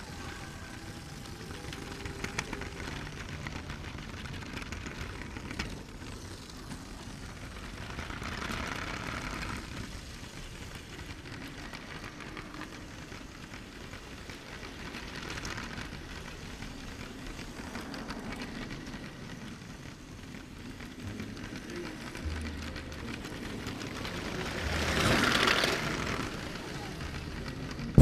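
Lego Christmas train's electric motor and plastic wheels running along plastic track, heard from a camera riding on the train: a steady low rumble with swells of hiss now and then, the largest near the end.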